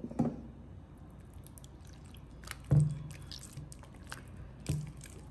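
Clear slime mixed with golden glitter liquid soap being lifted and stretched by hand: wet squishing with fine sticky crackles and three louder squelches, the loudest about halfway through.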